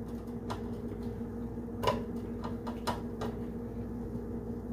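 A few sharp clicks and knocks of a metal spatula and hands against a nonstick frying pan, the loudest about two seconds in, over a steady low hum.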